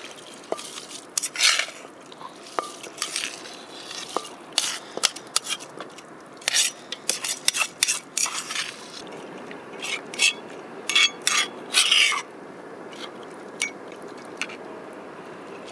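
Brown rice tipped from an enamel bowl into a cast-iron pot of stew, with irregular clinks and scrapes of bowl and utensil against metal. The clinks stop about twelve seconds in, leaving a steadier, quieter background.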